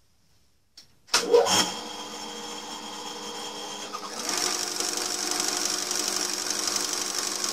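Harrison lathe starting up: a clunk about a second in, then a steady motor hum. About four seconds in the chuck starts turning and the belt drive runs up, spinning a Lucas K2F magneto on its test rig with a steady, louder, high-pitched mechanical running sound.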